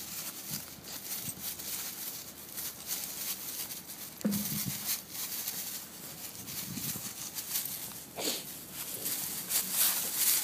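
Dry fallen leaves crackling and rustling under the paws of two small dogs as they scuffle and play, in many short irregular crunches. A brief low sound comes about four seconds in.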